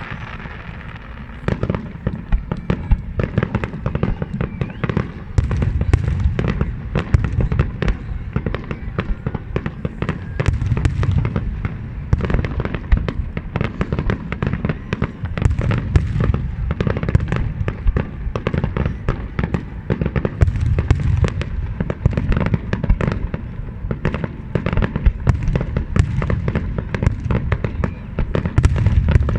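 Fireworks display going off: a dense, rapid run of bangs and crackles, starting about a second and a half in, with heavier booms swelling every few seconds.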